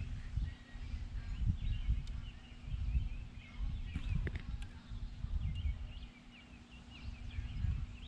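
Small birds chirping steadily over a low, uneven rumble of outdoor noise on the microphone, with a few faint clicks.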